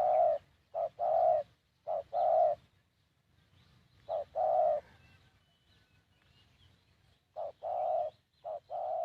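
Spotted dove cooing: a short coo followed at once by a longer one, repeated six times with a pause of about two seconds partway through. Faint chirps of small birds sound in the background.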